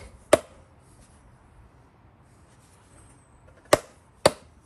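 Mallet tapping a gearbox housing onto a Segway X2 to seat it on its locating studs. Two sharp knocks right at the start, a pause of about three seconds, then two more about half a second apart near the end.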